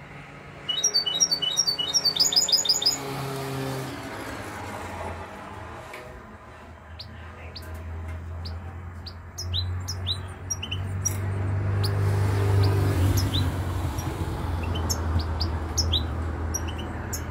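Caged European goldfinch singing: a fast run of high twittering notes about a second in, then scattered short chirps. A low steady rumble underneath grows louder in the second half.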